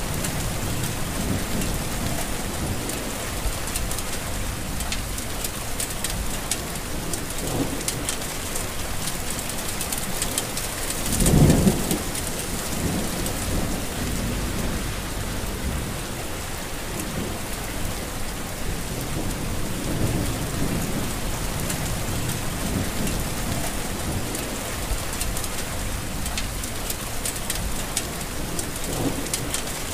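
Heavy rain falling steadily, with low rumbles of thunder; the loudest rumble swells up about eleven seconds in.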